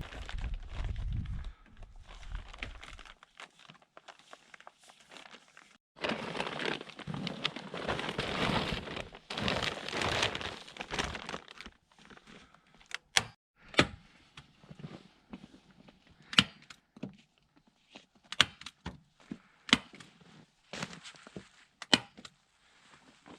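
A dense crinkling rustle for several seconds, then a run of irregular sharp knocks and clicks.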